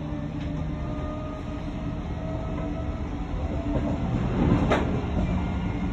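Odakyu 3000-series electric train running, heard from inside the car: a steady rumble of wheels on rail with the traction motors' steady humming tones. About four and a half seconds in there is a louder clatter of the wheels.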